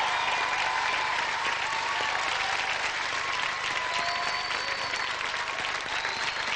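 Studio audience applauding steadily at the end of a dance routine.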